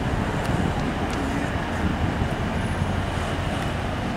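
Steady city road traffic noise: a low, even rumble of cars running past.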